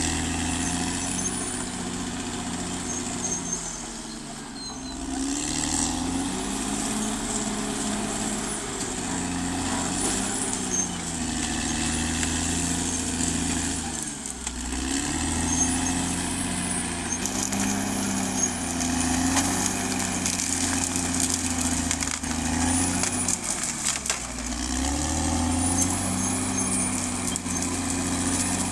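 Caterpillar D6R XL bulldozer's diesel engine working under load, its pitch dipping and climbing again every few seconds as the dozer pushes and backs off. A high whine rises and falls with the engine, and a few clanks sound in the middle.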